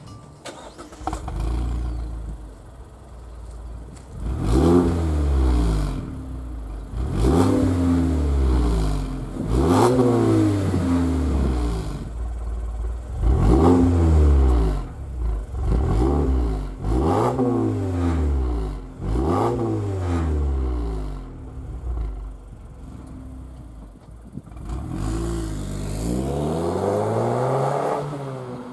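An engine revved repeatedly, each rev rising sharply in pitch and sinking back, about eight times, the last one slower and longer.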